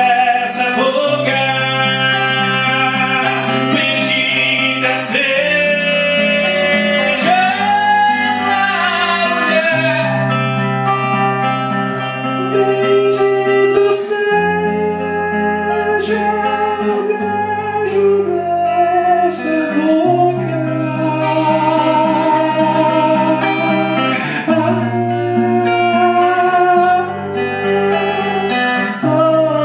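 Live acoustic music in an instrumental passage of a song: acoustic guitar over bass notes that change every second or two, with a sliding melody line on top.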